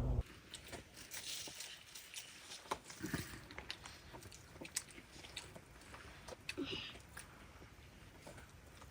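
Quiet, scattered short clicks and crunches, with two brief low voice-like sounds, about three seconds in and again near seven seconds.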